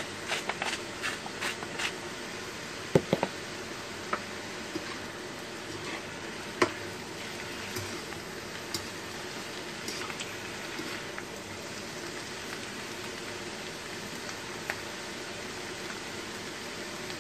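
Cabbage, sausage and mushrooms sizzling steadily in a frying pan as they reheat. A salt grinder clicks in quick even strokes for the first two seconds, and there are a few sharp knocks against the pan, the loudest about three and six and a half seconds in.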